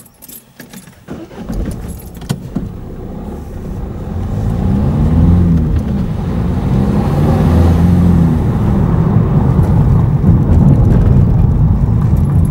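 Car engine and road noise from inside a moving car, growing louder over the first few seconds and then holding steady, with the engine note rising and falling twice in the middle.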